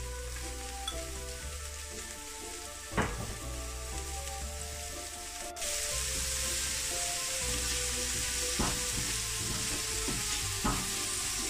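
Chopped onions sizzling in hot oil in a pan while a wooden spatula stirs them, knocking against the pan a few times. The sizzle gets louder about halfway through.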